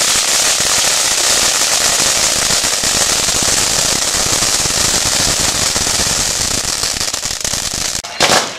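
Two ground fountain fireworks spraying sparks with a steady, dense, loud hissing crackle. A sharp loud bang just before the end.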